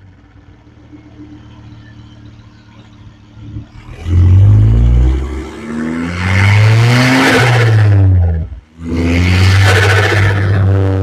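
Volvo T5 turbocharged engine idling quietly, then accelerating hard from about four seconds in, its pitch rising and falling through the gears, with a brief lift between gears near the end before it pulls hard again.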